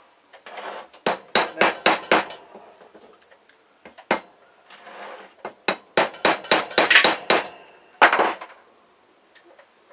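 Hammer blows knocking apart small electronic parts for scrap: a quick run of sharp strikes about a second in, then a second, denser run from about six to seven and a half seconds in and one last blow near eight seconds, with handling and scraping between them.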